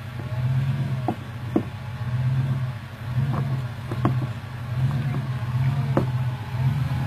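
Jeep Grand Cherokee WJ engine revving in repeated surges, roughly once a second, as the throttle is worked off-road. Several sharp knocks sound over it.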